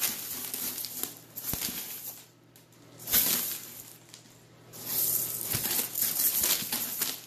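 A small pet burrowing and pawing through a bin of small, dry, hard ring-shaped pieces, which shift and rattle in hissing, rustling bursts. There are quieter pauses about two and four seconds in, and a longer stretch of digging near the end.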